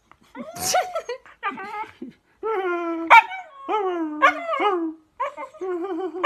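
A husky giving a run of about six drawn-out whining yowls, one after another, many sliding down in pitch at the end.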